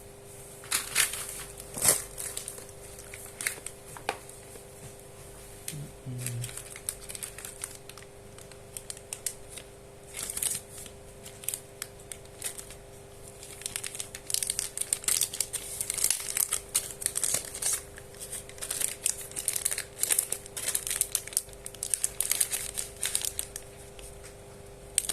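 Plastic packaging crinkling and rustling as it is handled, in irregular spells that grow busier from about halfway through, over a faint steady hum.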